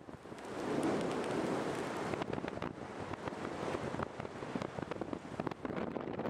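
Airflow rushing over the camera microphone in free flight, a steady wind noise that swells about a second in, with constant crackling buffets.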